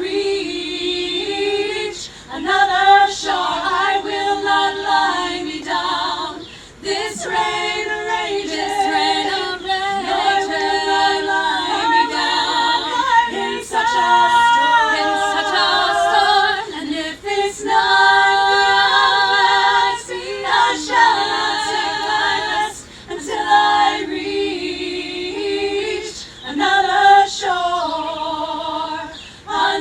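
A group of voices singing a cappella, led by female voices, in long held notes that waver in pitch.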